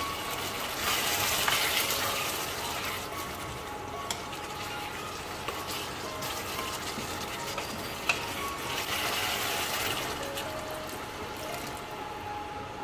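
Potato masala cooking in a wok, with two surges of hissing liquid noise and a couple of sharp knocks against the pan.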